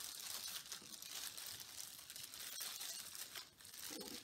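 Plastic crinkling and rustling from disposable plastic gloves and a plastic drop sheet as gloved hands handle a squeeze bottle of tie-dye.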